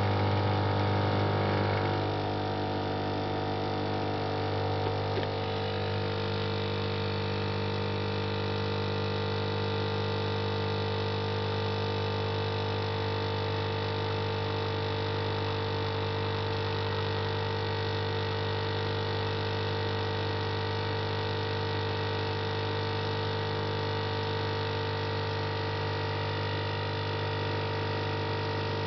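Lelit PL042E espresso machine's vibratory pump humming steadily while pulling an espresso shot. It is louder for the first two seconds, then settles to an even drone. It is pushing water through a puck tamped a little too hard, so the coffee runs slowly.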